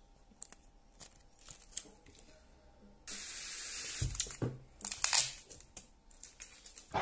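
Packaging handling: a few faint clicks, then from about three seconds in a steady hiss and several knocks and scrapes as a polystyrene foam box is handled and set down on a wooden table.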